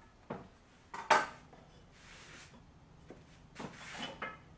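Hand tools handled on a wooden workbench: a few sharp metallic clacks and knocks as a square or similar metal layout tool is set down and picked up, the loudest with a short ring about a second in, and a brief scrape in the middle.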